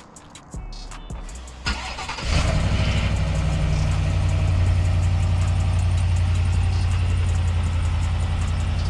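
2020 Chevrolet Silverado Trail Boss's 6.2-litre V8 cold-started by remote through its stock exhaust and muffler: a brief crank about two seconds in, then it catches and settles into a steady idle.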